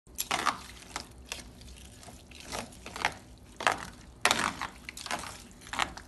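Metal spoon stirring chopped green peppers and parsley into a thick grated-tomato mixture in a steel pot: irregular wet squelching strokes with sharp clinks of the spoon against the pot.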